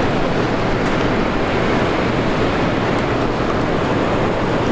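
Steady rushing noise of wind and fast-moving river water.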